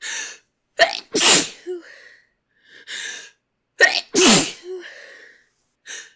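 A person sneezing twice, about three seconds apart, each loud sneeze preceded by a quick gasping in-breath, with another in-breath starting near the end. It is part of a pollen-allergy sneezing fit.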